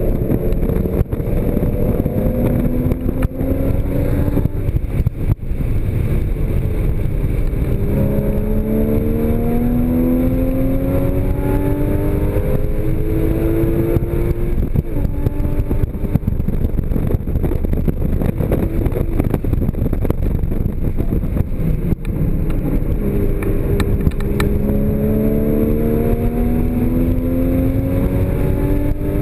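Porsche Cayman GTS's 3.4-litre flat-six heard from inside the cabin under hard acceleration, its pitch climbing three times as the car pulls through the revs, over a steady bed of road and wind noise.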